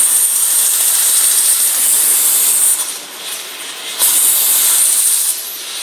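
Multiplaz 3500 steam-plasma welding torch hissing, a high steady rush from the plasma jet as its arc is struck 2–3 cm from the plate. The hiss cuts out about halfway through, comes back suddenly a second later, and drops away again near the end.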